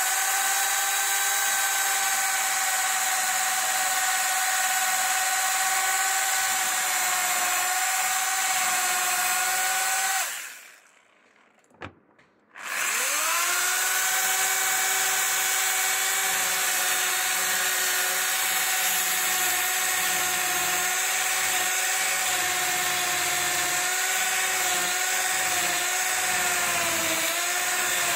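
Electric power tool motor spinning up to a steady high whine, running about ten seconds, then stopping. After a short pause with a click it spins up again and runs on, dipping slightly in pitch a few times near the end as it takes a light load.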